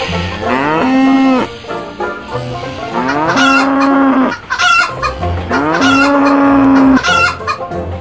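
Cartoon farm-animal sound effects: a cow mooing three times, each moo a long call that rises and then holds steady, with a chicken clucking over the later moos, all over a low background music track.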